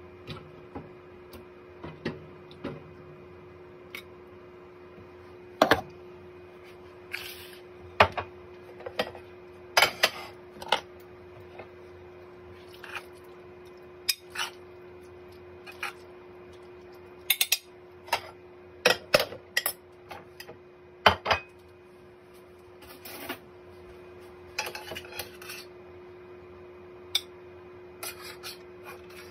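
Dishes and cutlery clinking, knocking and scraping at irregular intervals as food is served onto a plate, over a steady faint hum.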